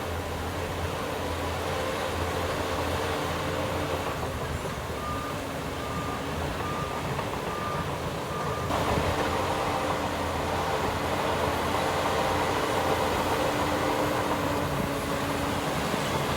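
Heavy diesel earthmoving machinery running steadily, with a reversing alarm beeping about five times near the middle. Just after the beeps stop, the engine noise gets louder.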